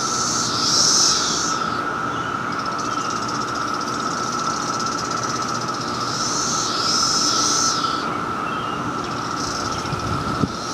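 A chorus of several kinds of cicadas calling at once: a steady, even drone, with a higher buzzing call that swells up and fades away twice, about half a second in and again around six seconds in.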